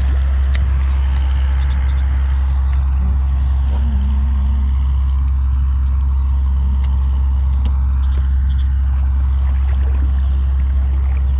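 Steady low rumble of a boat's motor running, with a few faint clicks and a short faint chirp near the end.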